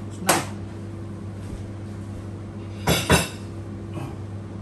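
Ceramic plate and bowl knocking together with a metal spoon and fork as the used dishes are picked up and carried away: one clink just after the start, a quick pair about three seconds in and a faint one near the end. A steady low hum runs underneath.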